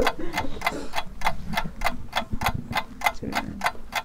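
Countdown timer ticking steadily, about four sharp ticks a second, with a few soft low bumps a little past halfway.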